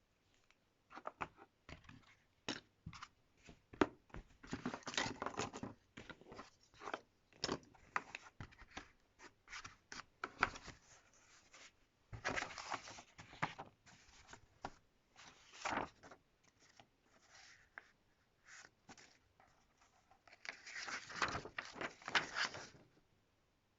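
Packaging being handled and opened by hand: irregular rustling, tearing and clicking, with a longer stretch of rustling near the end.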